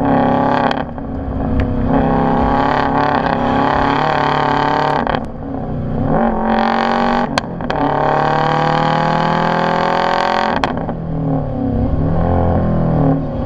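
Subaru STI's turbocharged flat-four engine running through an Agency Power cat-back exhaust, revving up and down. The pitch climbs slowly over a couple of seconds and falls away suddenly about three-quarters of the way through.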